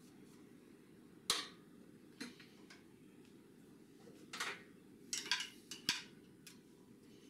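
Metal marking-out tools worked on an aluminium plate: a scriber scratching short lines and a steel rule and protractor being set down and shifted. There is a sharp click about a second in, then a cluster of short scratches and clinks between about four and six seconds.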